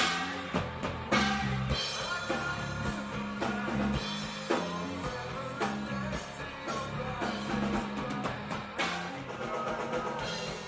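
Grunge rock played by a band: a drum kit with sharp, regular hits over guitar and a steady bass line.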